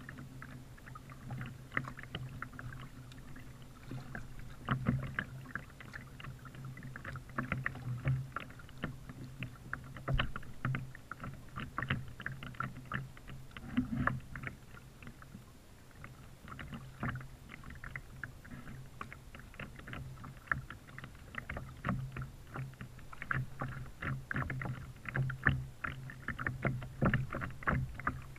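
Kayak paddling on calm water: a steady, irregular patter of small paddle splashes and drips, with water lapping at the plastic hull close to the bow-mounted camera and a steady low hum beneath.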